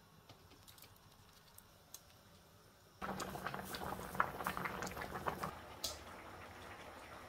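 A large pot of liquid at a hard boil, bubbling with many small crackles. It starts suddenly about three seconds in after a quiet stretch, is loudest for a couple of seconds, then carries on more quietly.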